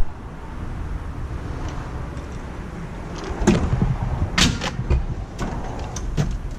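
Snap-on Epiq tool box drawers being slid and handled, a run of sharp clicks and knocks in the second half as a drawer moves and its metal contents clatter, over a low steady background rumble.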